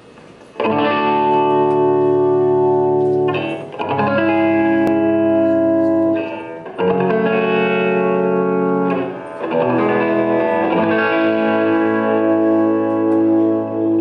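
Electric guitar played through effects, playing a slow intro of four held, ringing chords, each sounding for about two to four seconds before the next is struck. No drums or voice come in.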